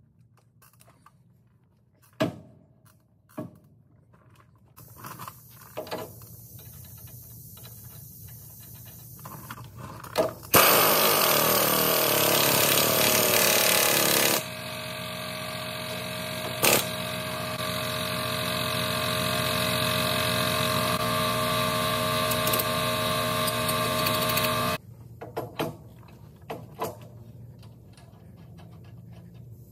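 Pneumatic impact wrench working a fastener on a truck steering knuckle: after a few clicks of metal handling, about ten seconds in it hammers loudly for about four seconds, then runs steadily for about ten seconds, slowly getting louder, and cuts off suddenly. Light metal clinks follow.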